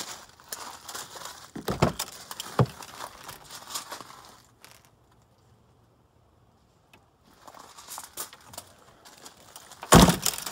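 Rear liftgate of a 2005 Ford Expedition being unlatched and swung open, with two sharp clunks about two seconds in. It is then pulled down and shut near the end with a loud slam, the loudest sound here.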